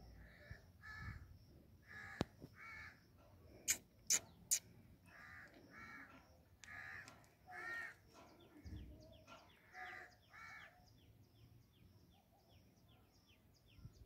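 Indian ringneck parrot giving short, harsh calls, mostly in pairs, again and again. Three sharp clicks come close together about four seconds in. Fainter quick chirps repeat about three a second over the last few seconds.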